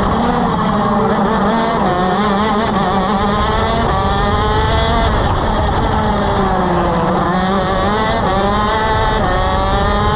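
Two-stroke shifter kart engine (Vortex ROK SV, 125cc) running hard on track. Its pitch climbs for the first few seconds, falls away through the middle, then climbs again toward the end.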